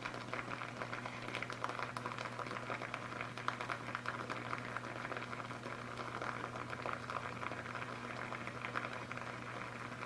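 Tap water boiling vigorously around a submerged CRT electron gun as current passes through it between the electrode terminals: a dense crackle of bursting bubbles over a steady low hum.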